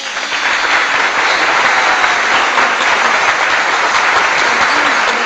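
Applause sound effect: a crowd clapping, loud and steady, cutting in abruptly.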